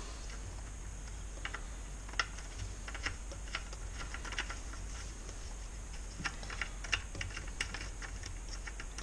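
Scattered light plastic clicks and taps of the oil filler cap and dipstick on a Honda GX35 four-stroke engine being unscrewed, wiped with a rag and handled to check the oil level, in small clusters over a low steady hum.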